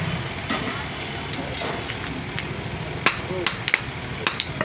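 Blacksmith's hand hammer striking iron on an anvil: about five sharp, irregular strikes in the second half, the first the loudest, over a steady low hum.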